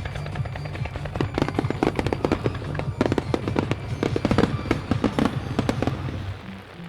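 Dense barrage of firework shell bursts and crackles, many reports a second, over bass-heavy music from the show's soundtrack. The barrage thins out near the end, leaving the music.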